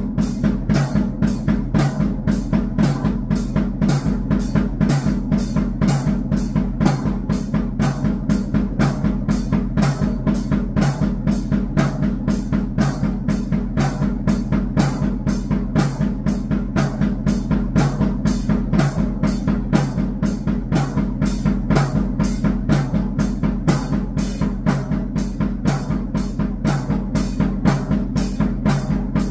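Drum kit played in a fast, even beat, about four to five strokes a second, with bass drum and snare, over a steady low drone.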